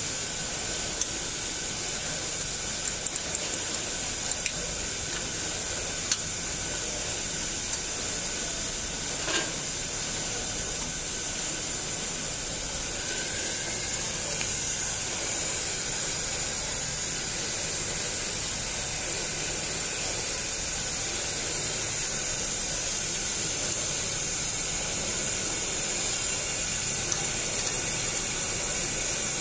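A steady hiss, strongest in the high end, with a few faint clicks and taps of a metal wrench on the stainless steel machine frame.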